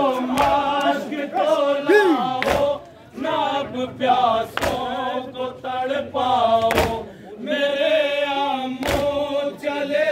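A crowd of men chanting a noha, a Shia lament, in unison. Sharp strikes of synchronized matam (hands beating on chests) land about every two seconds.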